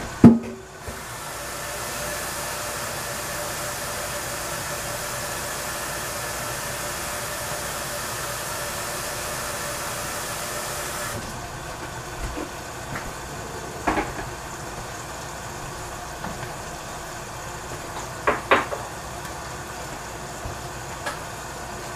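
A sharp knock, then a steady hiss from the lidded pan on the gas stove as the vegetables cook, which cuts off suddenly about halfway through, leaving a lower steady background with a couple of light knocks.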